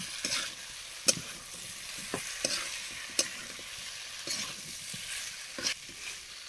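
Chunks of jackfruit frying in oil and spice paste in a kadhai, with a steady sizzle, while a metal spatula stirs them, scraping and clacking against the pan about half a dozen times.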